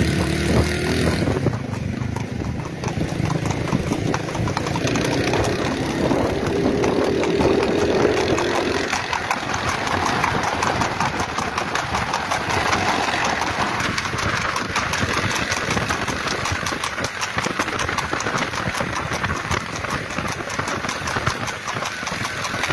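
Motorcycle engines running steadily as they ride along at road speed.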